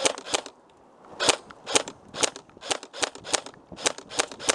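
Airsoft gun firing single shots in quick succession, about three to four sharp cracks a second, with a short pause about half a second in.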